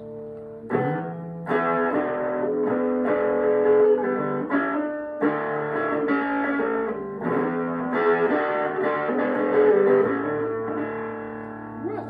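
Electric guitar being picked and strummed: a slow run of ringing chords and single notes, a new one struck about every second, with a last chord left ringing near the end.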